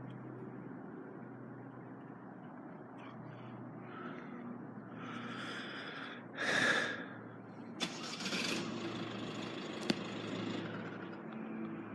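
Road traffic at a level crossing: a steady low engine hum, with two brief louder rushes of a vehicle about six and eight seconds in, and a sharp click near the end.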